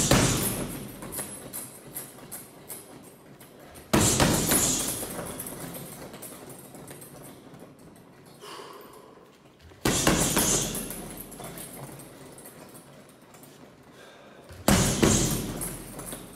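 Four hard swinging strikes into a 90 kg heavy bag, spaced about four to six seconds apart. Each is a sudden heavy thud that trails off over several seconds with smaller knocks.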